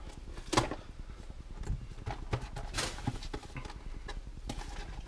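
A cat playing in the background: scattered, irregular taps and knocks, the sharpest about half a second in.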